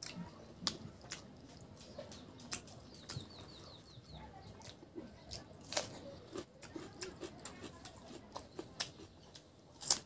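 Close-up mouth sounds of eating rice and pork curry by hand: wet chewing, lip smacks and sharp clicks, with a crisp crunch near the end as a cucumber slice is bitten. About three seconds in, a bird chirps briefly, a quick run of high notes.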